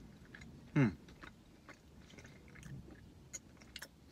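A person chewing a bite of protein crunch bar with the mouth closed: faint, irregular clicks.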